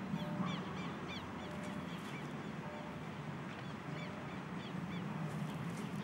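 Small birds chirping in short, quick calls, in bunches through the first second and a half and again in the middle, over a steady low hum.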